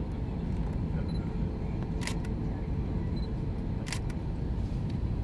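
Cabin noise of an Airbus A321-231 on approach, heard from inside the cabin: a steady low rumble of its IAE V2500 engines and airflow. Two sharp clicks come about two seconds apart.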